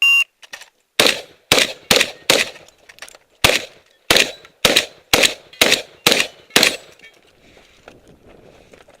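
Electronic shot-timer start beep, then about a second later a string of eleven shotgun shots, roughly two a second, with a short pause after the fourth. The shooting stops about seven seconds in.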